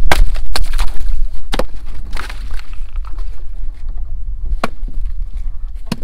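Hand tool striking and chopping at thick ice in a run of sharp, irregular knocks, closer together in the first two seconds and sparser after, over wind rumbling on the microphone.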